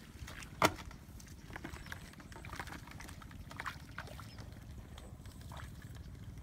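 Bare feet wading through shallow water, mud and wet grass: a scatter of soft splashing steps, with one sharp knock about half a second in.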